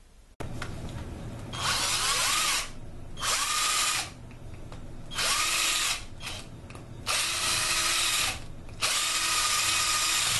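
Handheld power tool spinning against a V6 engine block's cylinder-head deck surface, working the gasket face around the bores. It runs on and off, getting much louder in about five bursts of roughly a second each, with a few short blips in between.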